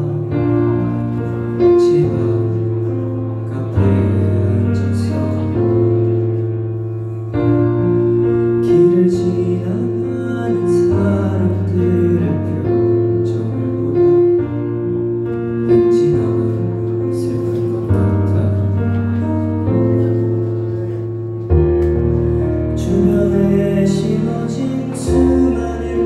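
A man singing a slow ballad live into a handheld microphone, over an accompaniment of sustained piano or keyboard chords that change about every two seconds, heard through the venue's PA from the audience.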